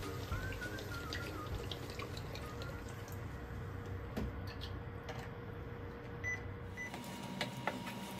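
Milk poured from a carton in a stream into a frying pan of sautéed onions, crab and mushrooms. Near the end a wooden spatula stirs the mixture, with a couple of light knocks against the pan.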